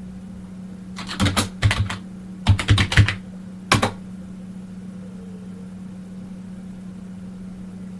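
Computer keyboard being typed: a quick run of about nine key clicks over the first four seconds, then the typing stops. A steady low hum runs underneath.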